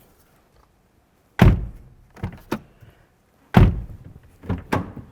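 Car door latch being worked with a newly fitted inside door handle: two solid thunks about two seconds apart, each followed by a pair of lighter clicks.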